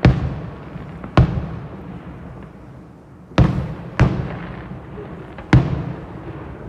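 Fireworks shells bursting overhead: five sharp bangs at irregular gaps of about half a second to two seconds, each dying away in a long rolling echo.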